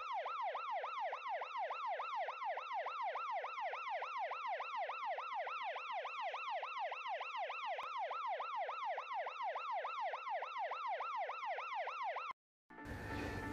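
Ambulance siren in fast yelp mode, its pitch rising and falling about three times a second, steady throughout, then cutting off suddenly near the end.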